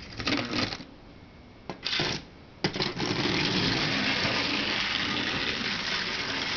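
Electric motor and gearing of a 1930s Marx Commodore Vanderbilt tinplate toy locomotive: two short bursts as power is switched on and off, then from about two and a half seconds in it runs steadily. Its reverse is not working properly, which the owner suspects is down to a crossed wire.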